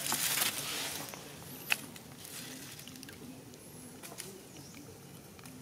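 Dry leaf litter rustling briefly as a baby macaque scrabbles in it, followed by a single sharp click and a few faint high bird chirps.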